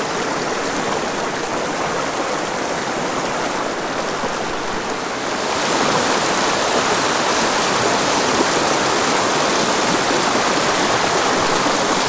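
Small mountain creek rushing over rocks in a shallow riffle: a steady rush of water that grows louder and brighter about halfway through.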